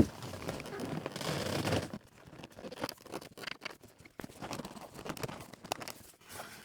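Heavy sleeper-cab curtain rustling and scraping as it is pushed and worked into its mounting slot, opening with a sharp knock, then a steady rustle for about two seconds, followed by scattered small clicks and rubs.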